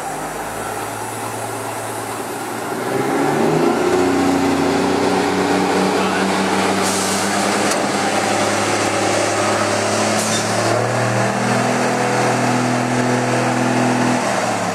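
Diesel engine of a dump truck pulling a pup trailer, working under load at low speed. It grows louder about three seconds in, holds steady, and changes pitch around eleven seconds in, with two short hisses around seven and ten seconds in.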